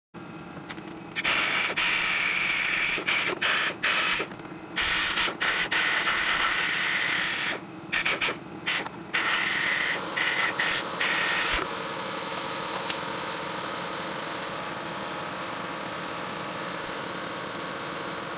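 Compressed air from an air tool on a red hose hissing in repeated short bursts for about ten seconds, then stopping, as the water pump's gasket mating surface is cleaned. A steady motor hum runs underneath throughout.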